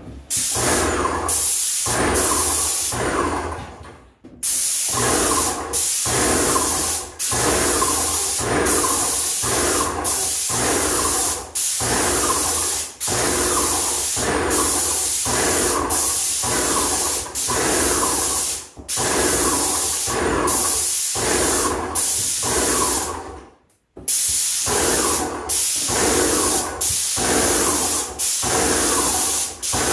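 Airless paint sprayer spraying paint, a loud steady hiss pulsing about once a second with the strokes of its pump. The sound breaks off briefly twice.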